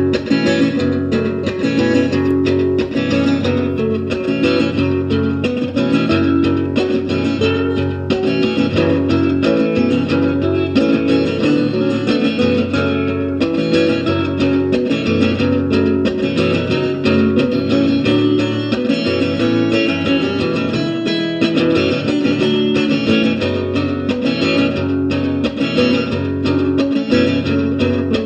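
Acoustic guitar played continuously with a pick, strummed and picked.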